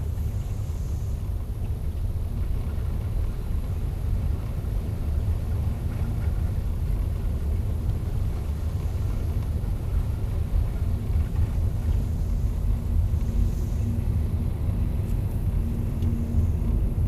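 Steady low rumble of a car's engine and tyres at low speed, heard from inside the cabin, with a faint engine hum coming in during the second half as the car speeds up.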